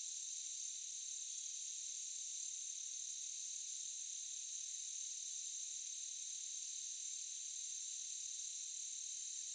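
Chorus of crickets: a steady, high-pitched trilling, with a still higher layer that drops out and comes back every second or so.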